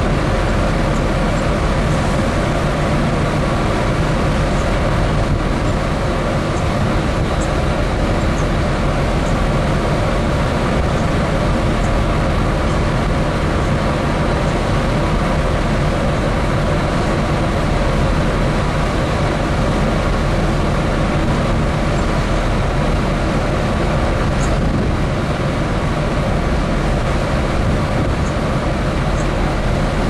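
Steady running noise of a dredge ship under way: a low engine drone mixed with the rush of the churning propeller wake, unbroken throughout.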